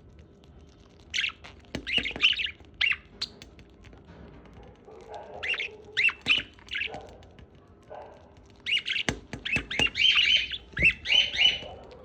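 Pet parrot squawking and chirping in short, high-pitched bursts that come in three clusters, with a few sharp clicks in the last third.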